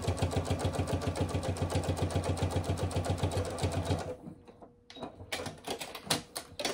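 Electric domestic sewing machine stitching at a fast, even rate through several layers of mask fabric to sew a dart. It stops about four seconds in, followed by a few sharp clicks and rustles.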